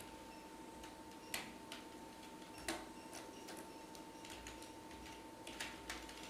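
Computer keyboard keys clicking irregularly as code is typed, a few keystrokes sharper than the rest, over a faint steady hum.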